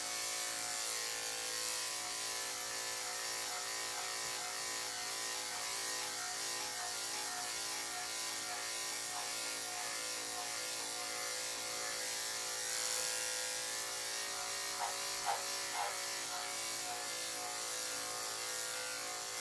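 Electric dog grooming clippers with a #10 blade running steadily while shaving through a heavily matted coat. Mats this thick quickly dull the blade.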